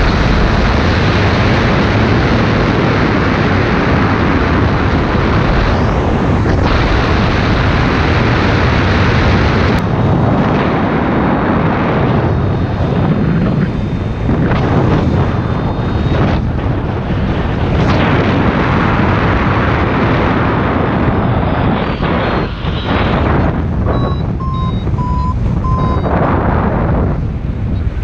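Airflow rushing over the camera microphone in paraglider flight, a steady, loud rush that rises and falls in gusts. In the last several seconds a paragliding variometer sounds short beeps, its tone for lift.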